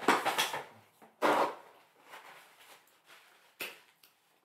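A few short knocks and rustles of things being handled, the loudest about a second in, then fainter ones.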